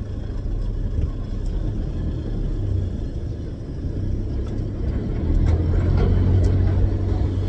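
A car engine and road rumble as the car pulls away and drives off, growing louder about five seconds in as it picks up speed.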